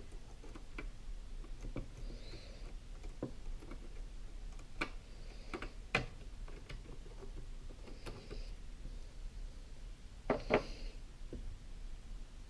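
Scattered light clicks and taps of small parts being handled as a glass linear scale is taken apart by hand, with a few short high squeaks. Two louder knocks come about six seconds in and near the end.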